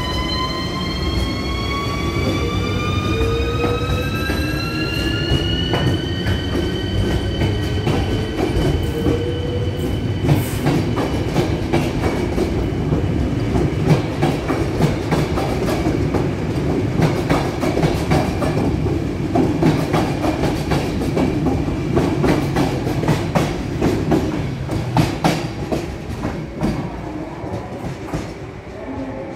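Škoda class 380 electric locomotive pulling away with a passenger train: its electric traction whine, several tones together, rises in pitch for about six seconds and then holds steady. The coaches then roll past with a steady rumble and many sharp clicks and clacks of wheels over rail joints and points, easing off near the end as the train draws away.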